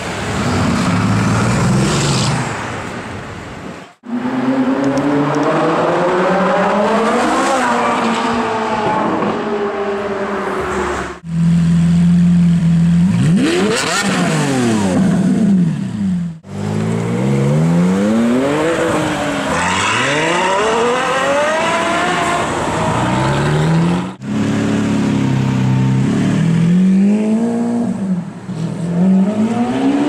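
Supercar engines revved hard in a run of short clips, the pitch climbing and falling over and over, with four abrupt cuts between clips; among them a Lamborghini Aventador's V12 blipped and revved.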